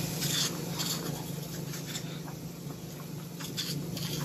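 Wooden pepper mill grinding black pepper: a run of irregular crunching clicks over a low steady hum.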